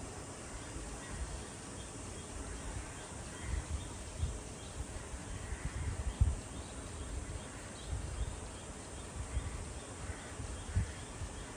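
Outdoor ambience through an open window: a steady hiss and an irregular low rumble, with faint distant bird calls now and then.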